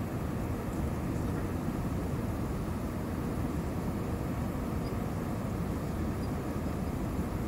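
Steady low roar inside the cabin of an Airbus A320-232 on final approach with flaps extended: engine and airflow noise, with a faint steady hum running through it.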